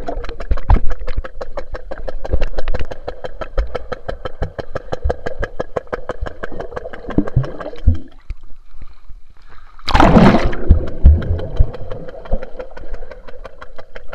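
Muffled underwater sound of a swimming pool, picked up through an action camera's waterproof case: a steady hum with fast, even ticking. About ten seconds in there is a loud rush of water and bubbles.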